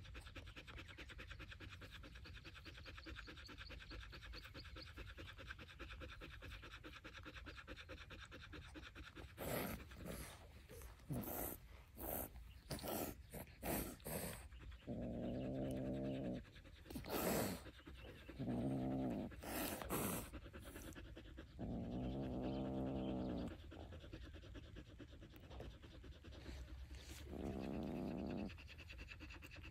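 Dog panting steadily with its tongue out. Several short rushes of noise come in the middle. Four times, a long, low, even-pitched call of a second or so sounds, louder than the panting.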